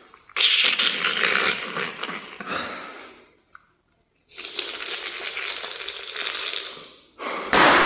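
Water sound effect: two stretches of hissing, splashing noise, each about three seconds long, with a short pause between them.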